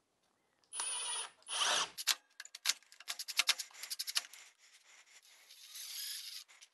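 Milwaukee cordless impact driver driving screws into a plywood jig: two short runs of the motor about a second in, then a rapid string of sharp clicks, and a softer whir near the end.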